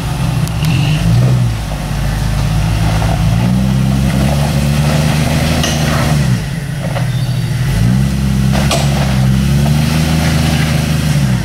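Off-road SUV engine crawling over rocks: twice it revs up, holds steady under load for a few seconds, then drops back toward idle, with a few sharp knocks in between.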